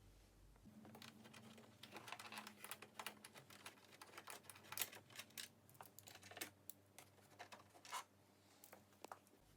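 Faint, irregular light clicks and scrapes of a Torx screwdriver undoing a headlight-mounting screw.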